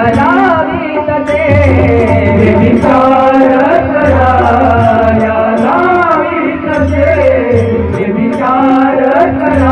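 Devotional bhajan singing: a melodic voice bending between notes over a steady held drone, with a low drum beat and regular sharp, bright percussion strokes keeping time.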